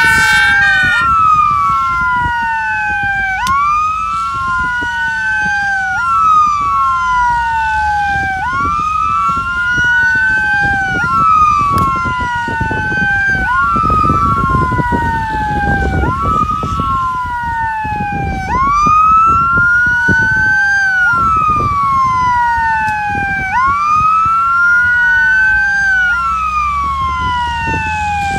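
Emergency vehicle siren wailing in a steady cycle, about every two and a half seconds: a quick rise in pitch, then a slower fall. A low rumble runs underneath.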